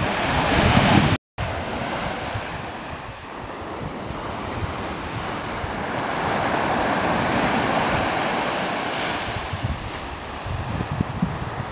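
Surf breaking and washing up the shore, swelling louder through the middle, with wind buffeting the microphone near the end.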